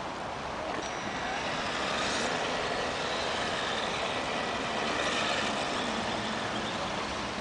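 Electric RC truck on a Traxxas E-Maxx chassis driving over paving slabs: a steady whir of motor, gears and tyres, a little louder from about two seconds in, with a faint thin whine early on.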